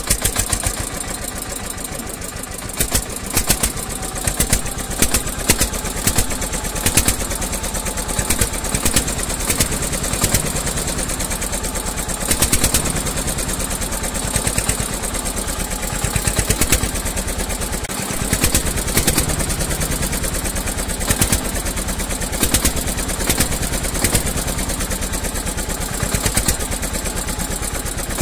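Diesel tractor engine running with a rapid, steady chugging, louder knocks coming every second or two.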